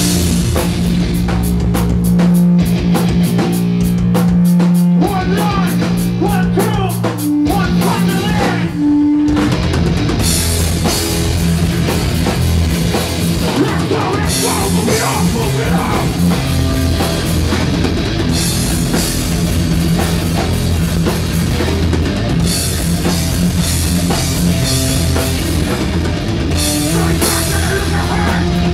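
Hardcore punk band playing live: distorted guitars and bass over a drum kit. The band holds long low chords with fast drumming, breaks off briefly about nine seconds in, then crashes back in at full tilt.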